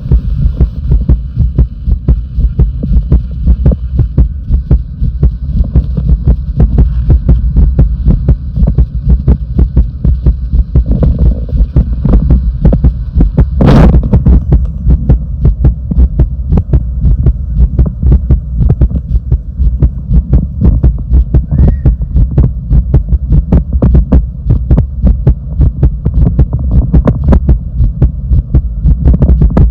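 Human heartbeat: a steady run of low thumps over a constant low hum. A single sharp knock sounds about 14 seconds in.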